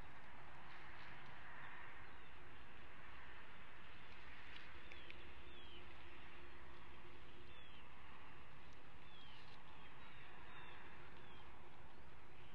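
Outdoor nest-cam ambience: a steady hiss with a low rumble, and short, high, falling bird chirps, about six of them scattered through, with a faint steady hum in the middle.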